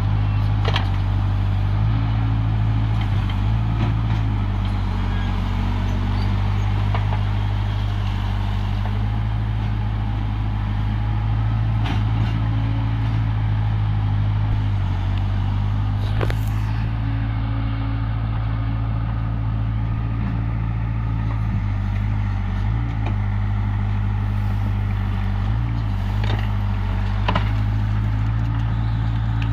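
Heavy machinery diesel engine running at a steady speed, a constant low drone with a few faint clicks and knocks over it.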